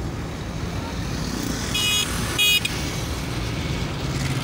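Road and engine noise inside a moving car, with two short, high-pitched horn toots about two seconds in, half a second apart.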